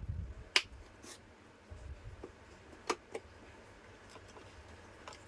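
Faint handling noises: a few light, scattered clicks and rubbing as the fan's capacitor and its wires are handled and connected in series for a test.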